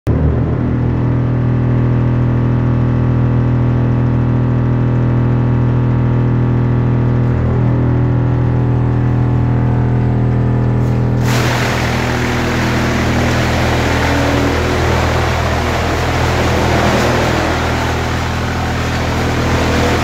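Industrial wood chipper running with a steady hum. About eleven seconds in, it changes suddenly to a loud, rough chipping noise as a tree trunk fed into it is cut into chips.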